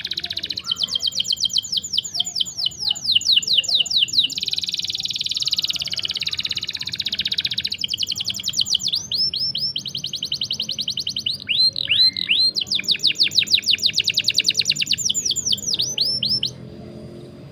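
Canary singing long rolling trills: fast runs of repeated high chirps in several phrases, each note a quick sweep. The song stops abruptly about a second before the end.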